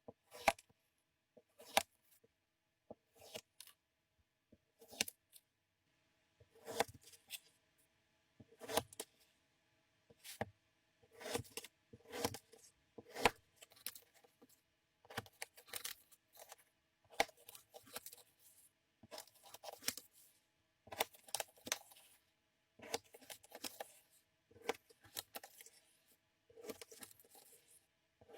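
Kinetic sand being cut with a knife: a series of short, grainy scraping strokes with silence between them. They are spaced out at first and come about once a second from around six seconds in.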